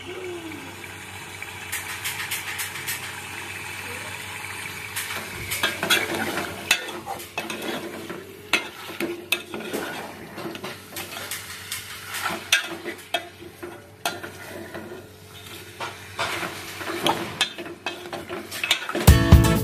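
Chicken frying in oil with onions, turmeric, ginger and garlic, sizzling steadily, while a spoon stirs and scrapes the pan with repeated clinks and knocks.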